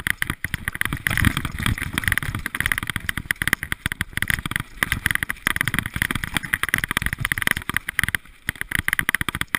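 Mountain bike descending fast on a rough dirt forest trail: a continuous clatter of irregular knocks and rattles as the bike jolts over the ground, over a steady rush of tyre and air noise.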